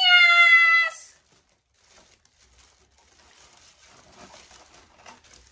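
A woman's drawn-out, high-pitched vocal exclamation falling in pitch for about a second, then faint crinkling and rustling of wrapping as a gift package is unpacked.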